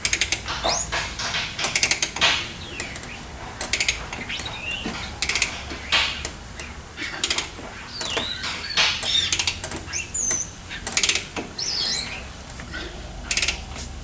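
A hand ratchet on the crankshaft bolt of a Toyota 2UZ-FE 4.7 L V8 clicks in short runs as the engine is turned over by hand after a timing-belt install, to check that the timing marks line up. Short high squeaks come between the runs of clicks.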